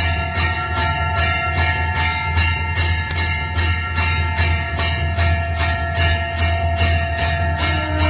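Temple bell rung repeatedly at a quick, even pace, about two to three strikes a second, its ringing tones overlapping and carrying on between strikes, over a steady low hum.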